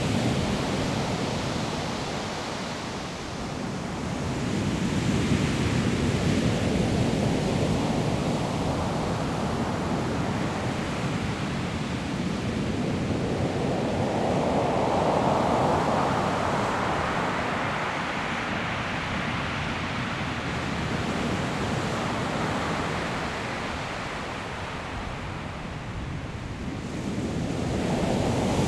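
Surf breaking on a pebble shore: a steady wash of waves that swells and falls back in slow surges, each several seconds long.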